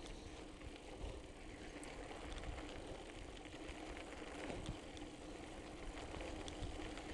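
Mountain bike rolling downhill on a loose gravel dirt track: a steady crunch and hiss of knobby tyres on the stones, with scattered small clicks and rattles from the bike.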